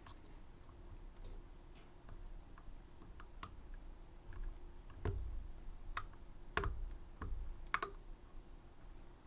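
Irregular small metallic clicks and taps from handling a Medeco M3 lock and its tools, with a few louder knocks in the second half.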